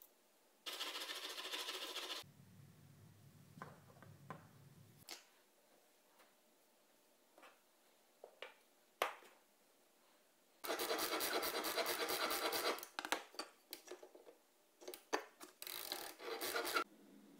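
Hand file rasping on a steel bolt in quick back-and-forth strokes, in several bursts, the longest about two seconds. Between them come a few light knocks of metal tools being handled on a wooden bench.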